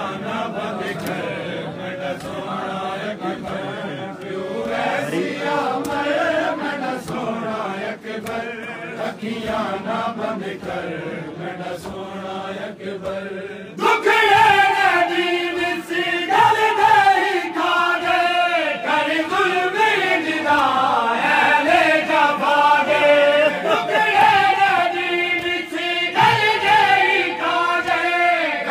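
A group of men chanting a noha, a Shia lament, in unison, with rhythmic chest-beating (matam) slaps. About 14 seconds in the sound cuts abruptly to a louder, clearer recording of the same chant.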